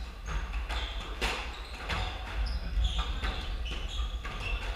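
A squash rally: sharp smacks of the ball off rackets and the walls of the enclosed court, a few each second, with rubber-soled court shoes squeaking briefly on the hardwood floor.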